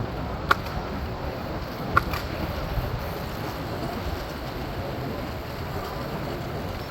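Steady street traffic noise and low wind rumble heard from a moving electric scooter in city traffic, with two short sharp clicks, about half a second and two seconds in.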